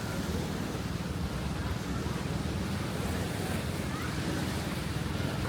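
Ocean surf washing on a sandy beach, a steady wash of noise with wind rumbling on the microphone.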